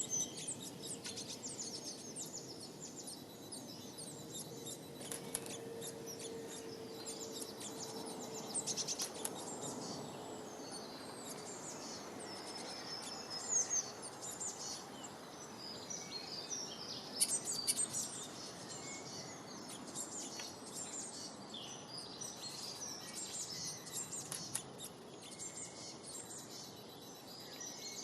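Several small birds chirping and twittering, with quick high calls and trills throughout over a steady outdoor background hiss. A faint steady hum runs underneath for a few seconds in the first third.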